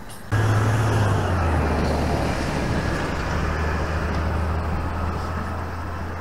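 Road traffic: a vehicle's engine drone and road noise, starting suddenly about a third of a second in and easing off slowly.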